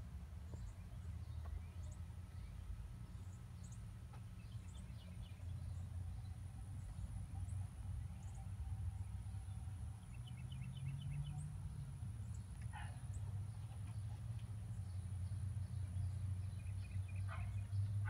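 Faint outdoor ambience: a steady low rumble with scattered faint bird chirps and short trills, a thin steady high-pitched tone underneath, and a few louder chirps near the end.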